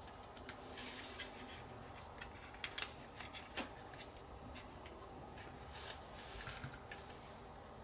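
Masking tape being peeled off the painted plastic body of a model kit: faint, crisp crackles and rustles in short spells, with a few light clicks of a small hand tool.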